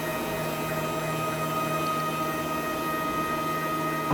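Stepper motors of a four-axis desktop CNC mill whining steadily as the X and Y axes are jogged by the controller, a constant pitched hum with several steady tones.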